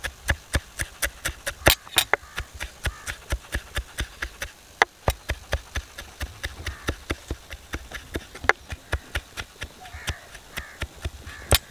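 Large kitchen knife rapid-chopping sliced jalapeños on a wooden log-slice board: quick, even knocks of the blade on the wood, about four or five a second, a few of them louder.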